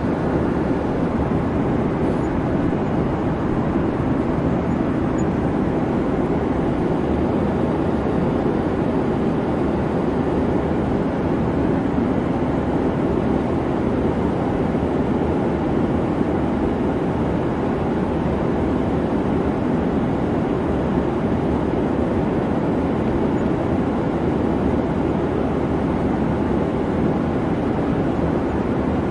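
Steady, even drone of a jet airliner in flight, a constant low rumble with no change in pitch or level.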